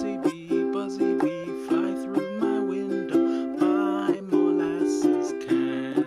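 Tenor ukulele with a baritone body strummed steadily, about two strums a second, playing a simple C and G7 chord accompaniment. The chord changes near the end.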